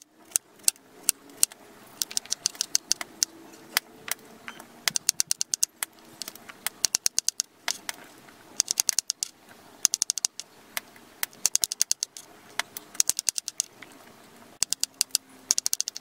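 Kitchen knife chopping bottle gourd on a wooden chopping board. It comes in bursts of quick, sharp taps of the blade against the board, with short pauses between them.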